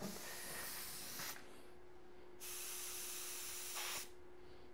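No Name Minigun airbrush spraying paint at 25 PSI with the fluid fully open: two hisses of air, each about a second and a half long, with a short pause between.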